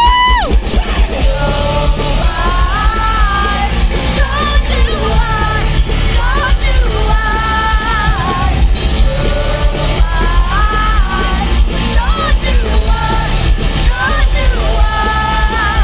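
Hard rock band playing live, with a woman singing lead in long held notes over electric guitar, drums and heavy bass.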